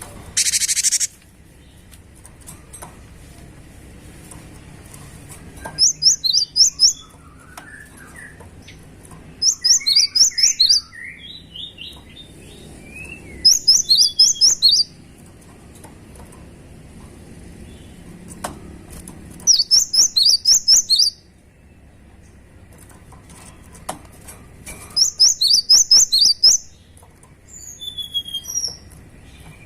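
Cinereous tit (gelatik batu) singing in full voice: loud bursts of rapid, high repeated notes, each about a second long, recurring every few seconds, with softer, lower twittering between them. A short hiss sounds just under a second in.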